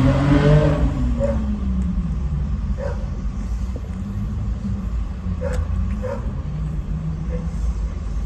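Steady low rumble of a car or traffic, with a pitched sound sliding down in the first second and a few faint short sounds scattered through.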